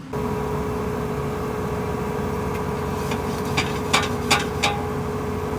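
A heavy engine running steadily at idle with a constant whine. About three and a half seconds in, four sharp metallic knocks come in quick succession.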